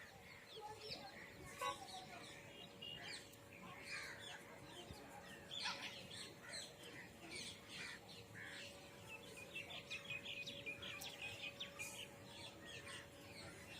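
Faint chirping of small birds, scattered short high calls with a quick run of chirps near the end, over a faint steady hum. A couple of soft knocks stand out, the first about one and a half seconds in.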